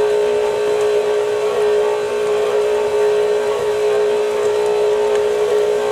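KitchenAid stand mixer's motor running steadily, its flat beater turning through choux pastry dough as an egg is beaten in. It makes an even, steady whine.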